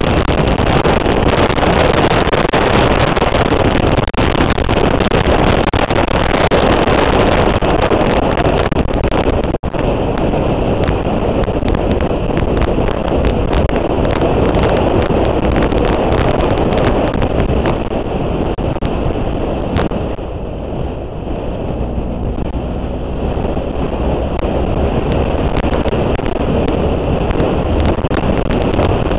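Motorcycle riding at speed: the engine runs under heavy wind noise on the microphone. There is a brief dropout a little under ten seconds in, and the wind eases for a few seconds about two-thirds of the way through.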